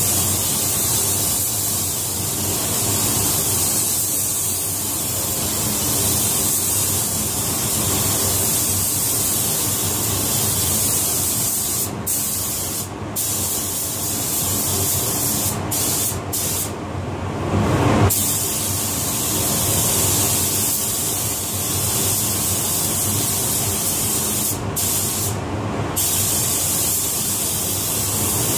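Compressed-air paint spray gun hissing steadily as paint is sprayed. The hiss cuts out briefly several times as the trigger is let go between passes, over a steady low drone.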